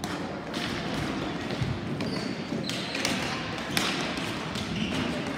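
Ball hockey game in play: several sharp knocks and thuds, with the loudest near the middle, over a steady background din.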